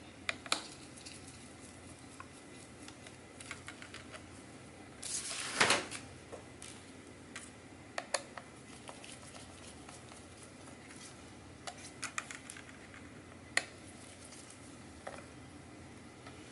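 Scattered small clicks and taps of gloved hands handling parts and cable connectors inside an opened MacBook Pro laptop, with one louder, brief rustling scrape about five and a half seconds in.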